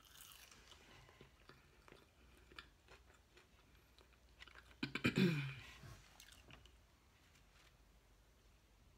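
Mouth sounds of a person chewing a soft chicken biscuit sandwich: small wet clicks and smacks. About five seconds in there is a short sound from the throat whose pitch falls.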